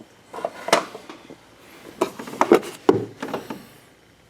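Several short plastic clicks and knocks with some rubbing: the headlight's plastic dust cover being worked free and handled behind the headlamp housing of a Chevy Sonic.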